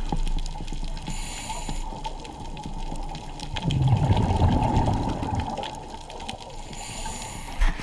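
Scuba breathing heard underwater through a camera housing: a short hiss of the regulator's inhalation about a second in and again near the end, and a louder burst of exhaled bubbles in the middle.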